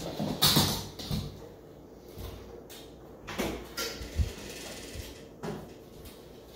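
Scattered knocks, scrapes and clatter of a cat scrambling on a laminate floor and batting a small plastic spring toy. The loudest scuffle comes about half a second in, with a few lighter knocks later.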